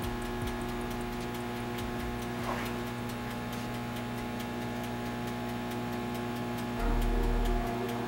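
Galanz countertop microwave oven running and heating a dish of scrambled eggs: a steady hum with a regular light ticking over it. A low rumble comes in near the end.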